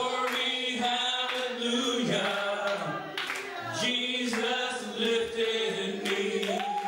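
Church congregation singing together, a man's voice leading, with a long held note starting near the end.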